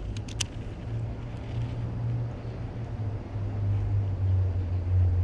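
A low, steady motor drone that swells and eases, with a few sharp clicks about half a second in.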